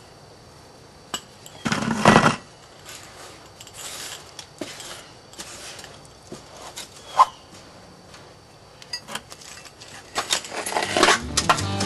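Heat-treated rock and sand being scraped and shifted in a metal turkey roaster pan: a loud scrape about two seconds in, then scattered clinks and knocks, with several in quick succession near the end.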